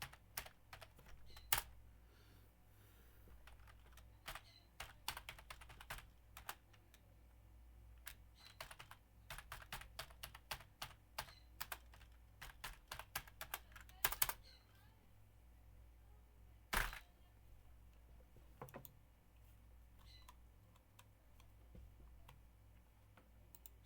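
Typing on a computer keyboard in irregular bursts of key clicks, with a steady low hum of office background. A single louder knock comes about seventeen seconds in.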